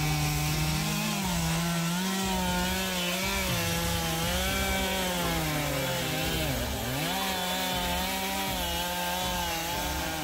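Gasoline chainsaw cutting into a large tree trunk while felling it, running under load. Its pitch wavers throughout and takes one deep dip about seven seconds in before picking back up.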